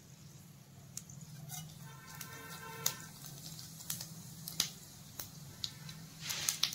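Whole spices dropped one by one into hot oil in a kadai, giving scattered faint crackles and sizzles. A brief hiss comes near the end.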